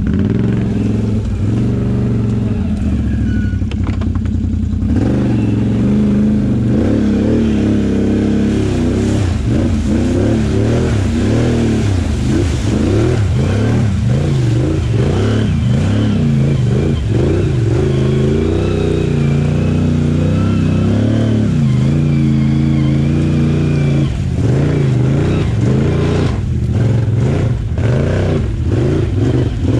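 Can-Am Outlander XMR 850 ATV's V-twin engine revving up and down again and again as it is ridden, the pitch rising and falling throughout.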